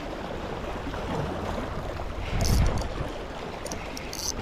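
Outdoor wind and water noise on the microphone. About halfway through, a louder gust of wind rumbles against the microphone, and a few short hissing bursts come after it.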